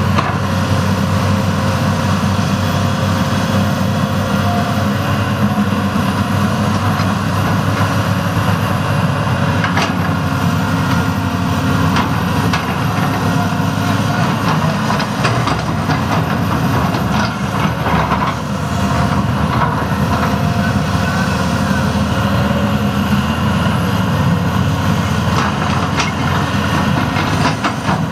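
John Deere 330C LC excavator's diesel engine running steadily under load as the machine digs and swings its boom, with a few short knocks along the way.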